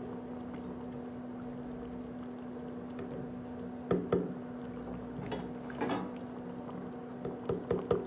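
A steel ladle stirring chunks of chicken in a pot of thick korma gravy, clinking against the pot a couple of times midway and several times near the end, over a steady low hum.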